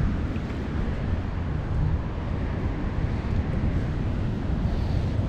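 Wind buffeting the microphone: a steady low rumble with no clear sound events on top.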